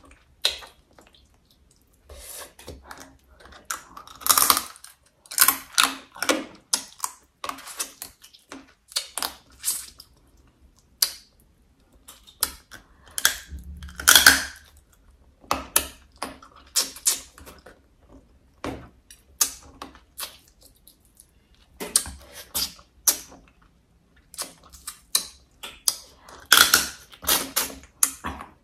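Close-miked crunching of braised crab shell: crisp cracks and crackles as the shell is bitten, chewed and broken apart, coming in irregular bursts with pauses of a second or two between them.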